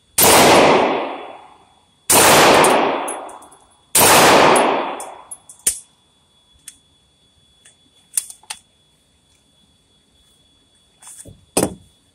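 Kel-Tec Sub2000 Gen 3 pistol-calibre carbine fired three times, about two seconds apart, each shot ringing out in a long echo in an indoor range booth. A few lighter clicks and clinks follow.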